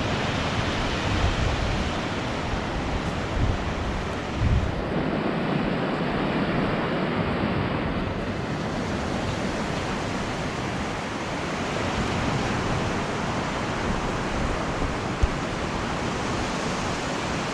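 Heavy sea surf breaking on a sandy beach at high tide: a steady rushing wash that swells and eases, with wind buffeting the microphone in low rumbles.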